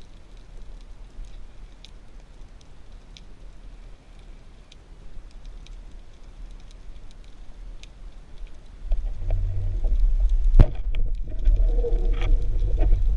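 Underwater ambience from a spearfishing camera: a faint hiss crackling with scattered small clicks. About two-thirds through, a much louder low rumble sets in, with one sharp crack in it.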